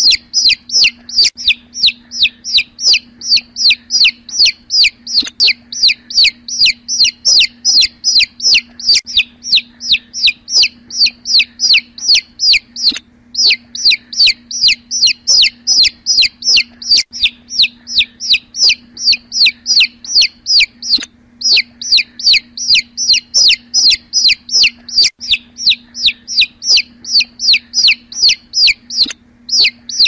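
A chick peeping nonstop: short, high calls that slide downward in pitch, about three a second, broken by a few brief pauses.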